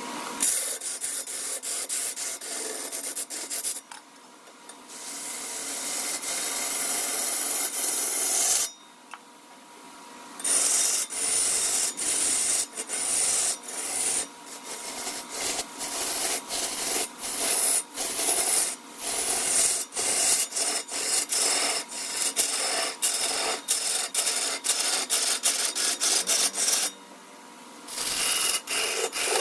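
A tool cutting and scraping wood in many quick, uneven strokes, making a dry rasping sound. It stops briefly about four seconds in, again for about two seconds near nine seconds, and once more near the end.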